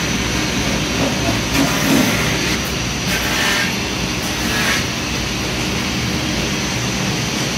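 Steady running noise of workshop machinery, with a few light knocks early and a brief brighter hissing rattle about three to five seconds in.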